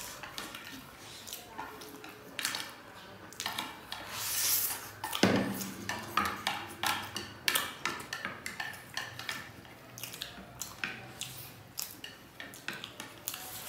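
Wooden chopsticks clicking and scraping against plates in quick, irregular taps while two people eat noodles, with a sharper knock about five seconds in.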